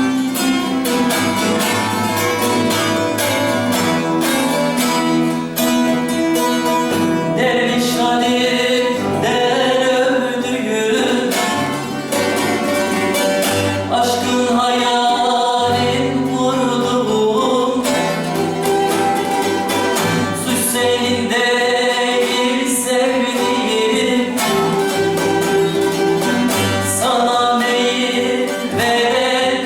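Bağlama and guitar playing a Turkish folk song, plucked notes coming thick and fast at first, with singing joining in about seven seconds in and carrying on over the strings.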